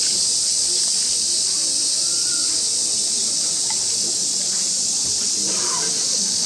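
A steady, high-pitched chorus of cicadas, with faint murmuring voices underneath.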